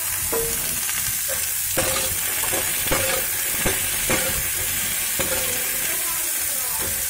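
Raw potato strips and sliced onion sizzling in hot oil in a metal kadai, just added and being stirred. A spatula scrapes and knocks against the pan several times over the steady sizzle.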